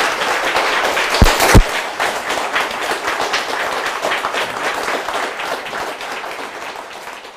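Audience applauding, the clapping gradually dying away. About a second in there are two loud thumps close together.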